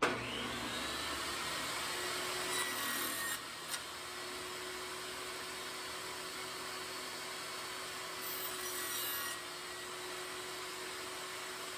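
Table saw switched on and spinning up, then running steadily; it grows louder twice, about a quarter of the way in and again about three-quarters in, as the blade cuts short lengths off a wooden strip.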